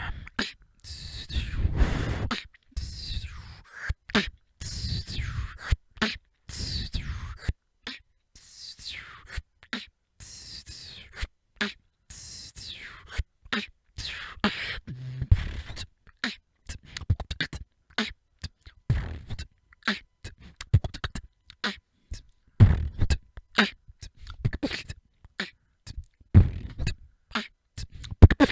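Solo vocal beatboxing freestyle: mouth-made bass-drum hits, snares and hi-hat clicks. High sliding sounds run through the first half, and the second half is a faster run of sharp clicks broken by occasional deep bass hits.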